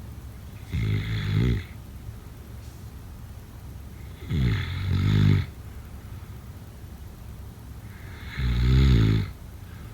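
A sleeping person snoring: three loud snores, each about a second long, roughly four seconds apart, over a steady low background noise.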